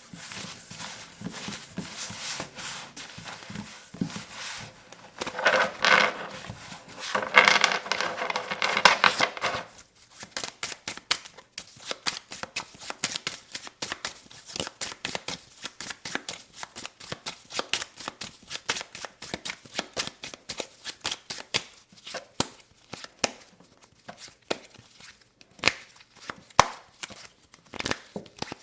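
Playing cards handled close to the microphone: dense shuffling and riffling for about the first ten seconds, then a long run of separate quick taps and clicks, several a second.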